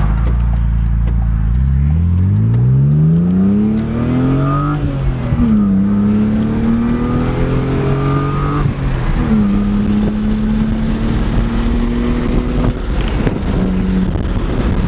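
BMW E36 with a newly fitted exhaust doing a hard acceleration pull. The engine note climbs steeply, drops as it shifts up, climbs again and drops at a second upshift, then holds steady and eases off near the end.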